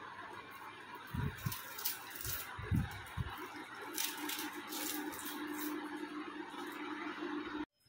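Plastic pull-string manual food chopper full of chopped onion being handled: a few dull knocks in the first half, then light clicks as the lid comes off and the blade is lifted out.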